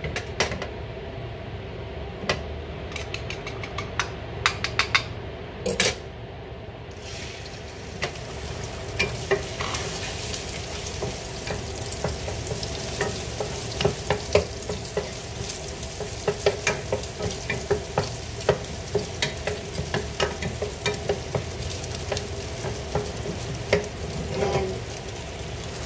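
Spatula clicking and scraping against a frying pan on a gas stove, the strokes spaced out at first. About seven seconds in, a steady sizzle of food frying in oil starts and carries on under frequent spatula clicks as the food is stirred.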